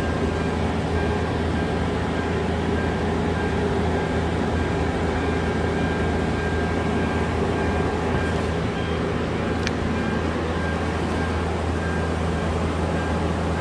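A steady low machine hum with a faint high steady whine above it, and one sharp click about ten seconds in.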